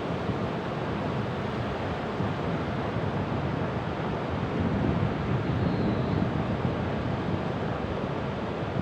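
Ocean waves washing onto the shore in a continuous surf, swelling slightly past the middle.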